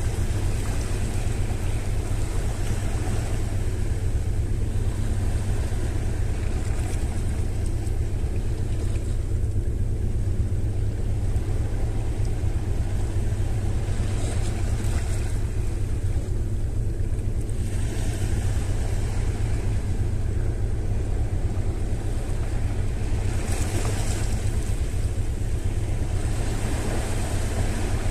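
Steady wind rumble on the microphone over the wash of sea waves.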